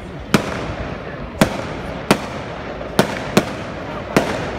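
Aerial fireworks shells bursting overhead: six sharp bangs in about four seconds at irregular intervals, over a steady background noise.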